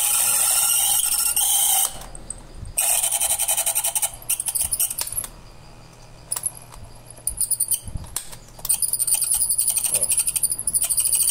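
Old lamp-style electric fan running below its proper speed, its motor humming steadily under a fast metallic rattling and scraping that comes in loud stretches, strongest near the start and again near the end. The noise comes from sleeve bearings (bushings) gummed up with cooking oil.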